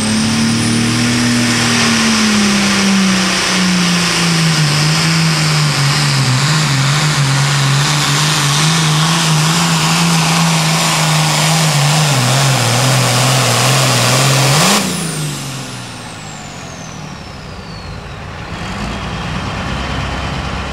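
John Deere Super Farm pulling tractor's turbocharged diesel engine at full throttle under load, its pitch slowly sagging as it pulls down. About fifteen seconds in it blips up, then the throttle is released at the end of the pull and the turbocharger whistles down in a long falling whine.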